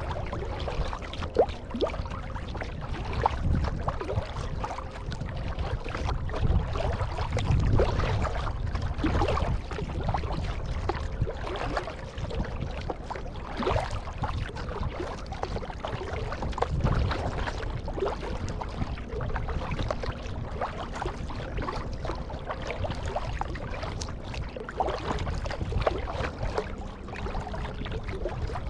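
Kayak paddle strokes dipping and splashing in the water, an irregular run of short splashes over a steady low rumble.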